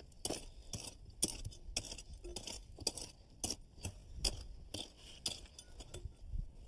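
Clay bricks being set by hand into stone dust: an irregular run of sharp clinks, about two a second, of brick against brick, with gravelly scraping between.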